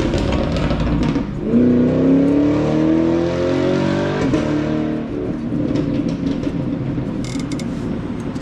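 Power tool working the brake rotor's Loctited retaining bolt: a rough mechanical rattle, then about a second in the motor spins up with a rising whine that lasts about three seconds and stops. A quieter mechanical noise follows.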